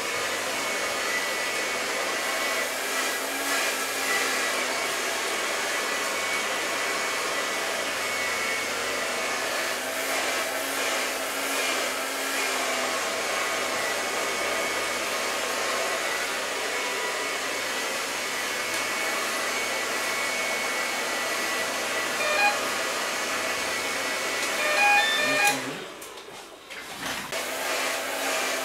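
Handheld hair dryer blowing steadily during a blow-dry styling of short hair, a rush of air with a thin motor whine. Near the end it falls away for a couple of seconds, then comes back.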